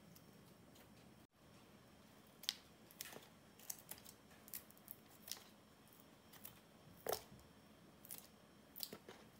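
Kitchen scissors snipping red chili peppers: a dozen or so crisp snips at uneven spacing, starting about two and a half seconds in.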